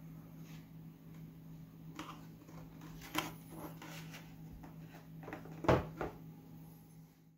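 Light wooden knocks and taps as plywood boat hull parts are handled and set down on a workbench, a few scattered strikes with the loudest near the end, over a steady low hum.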